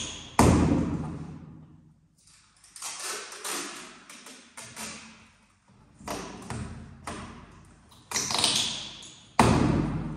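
A cardboard parcel box being handled and pressed by hand: a series of about five sharp knocks and scrapes on the cardboard, each ringing out briefly, the loudest just after the start and near the end.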